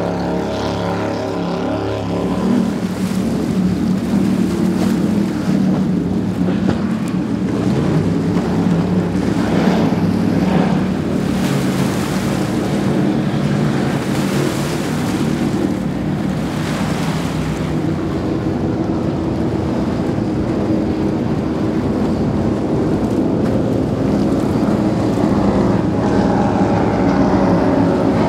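High-performance powerboats passing at speed one after another, their engines droning. A rush of water and spray sweeps through the middle, and another boat's engine drone builds near the end.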